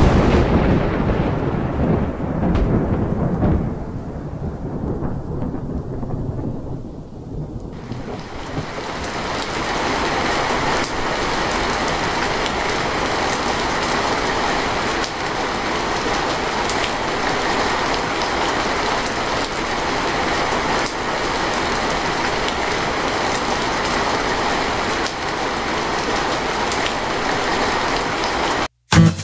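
A rumble of thunder at the start that dies away over the first several seconds, with rain running under it. About eight seconds in, the rain becomes a steady, even downpour falling on wet mud and puddled water.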